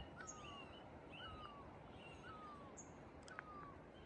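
Faint bird call, a short falling whistle repeated about once a second, over a steady low outdoor hiss. A single faint click a little over three seconds in.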